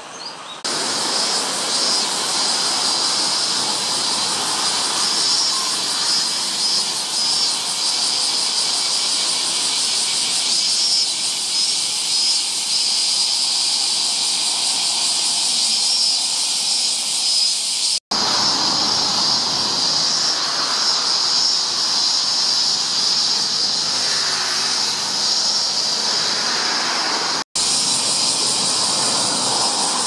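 Cicadas singing in a loud, steady chorus, a high continuous hiss. It cuts out for an instant twice.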